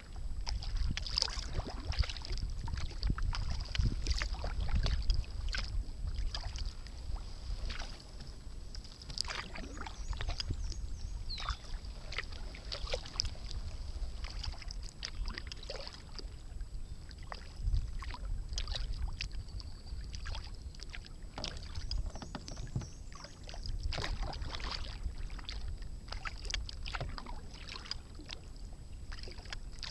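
Sea kayak paddle strokes in calm water: irregular dips, splashes and drips from the blades as the kayak moves along, over a low rumble on the microphone.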